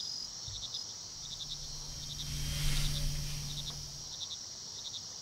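Crickets chirping, short clusters of pulses repeating about every two-thirds of a second over a steady high drone. A low hum swells and fades about halfway through.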